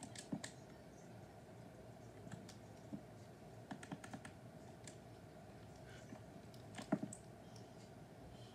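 Faint, irregular typing on a computer keyboard: scattered key clicks and taps, with one louder knock about seven seconds in.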